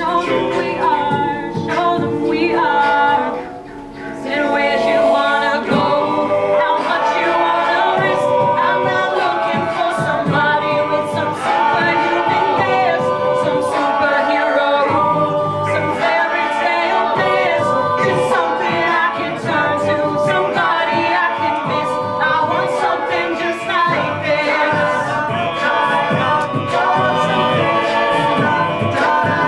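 A mixed-voice a cappella group singing a pop arrangement in layered harmony over a beat of vocal percussion. The sound dips briefly about three seconds in, then carries on at full strength.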